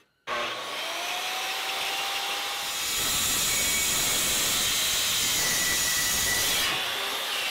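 A power tool's motor spins up with a rising whine and runs steadily. From about three seconds in until near the end it grows louder and hissier.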